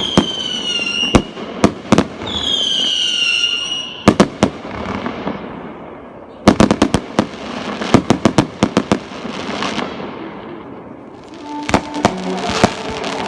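Fireworks display: sharp bangs, with two falling whistles in the first few seconds, then a quick run of crackling pops about halfway through. Near the end, music starts under more bangs.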